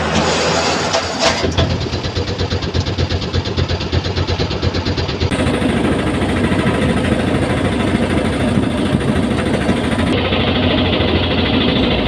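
A vehicle running, engine and travel noise steady and loud, with abrupt changes in the sound about five and ten seconds in.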